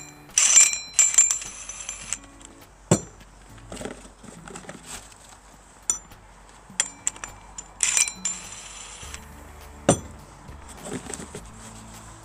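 Steel nuts, washers and leveling-foot plates clinking and ringing as they are handled, with two short runs of a cordless impact wrench spinning a 24 mm nut onto a sawmill leveling-foot bolt, about a second in and again about eight seconds in.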